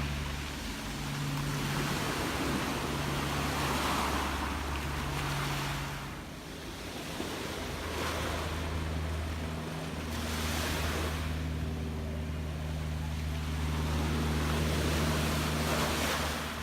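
Gentle sea waves washing ashore, each wash swelling and fading every few seconds, over a steady low hum.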